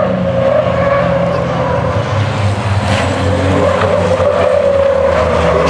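Diesel engine of a MAN racing truck running steadily under power as it laps the circuit, a continuous low drone with a steady higher whine above it.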